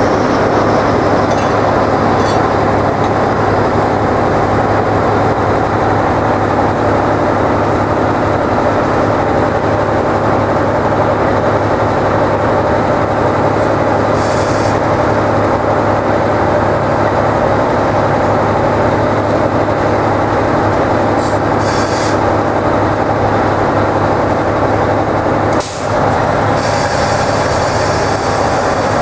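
Diesel locomotive engine idling steadily close by, a constant low hum. Compressed air hisses briefly a few times, around the middle and again near the end.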